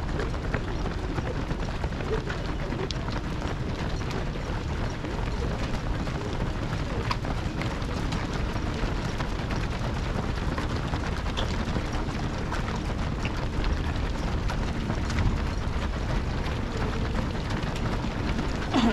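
A large field of marathon runners passing on the road: a continuous, dense patter of many footsteps over a steady low rumble.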